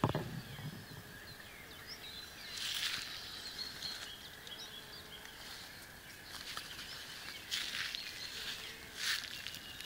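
Leaves and twigs of a young grafted fruit tree rustling close to the microphone as a hand brushes through them, in a few short bursts, with a bump at the very start. Faint bird chirps sound in the background.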